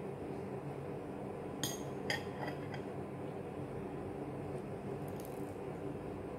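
Metal fork clinking lightly against a plate, several times between about one and a half and three seconds in and once more near five seconds, over a steady low hum.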